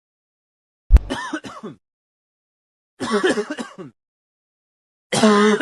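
A person coughing three times, about two seconds apart, each a short voiced cough with a sharp start and a pitched, rasping tail.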